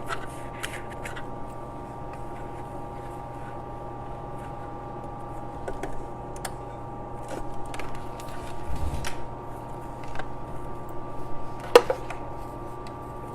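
Sewing machine running a straight stitch through fabric and clear vinyl, a steady motor hum with scattered light clicks and one sharper click near the end.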